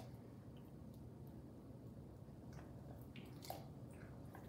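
A cat eating from a saucer: a few faint, short wet clicks of its licking and chewing against a quiet room, most of them clustered past the middle.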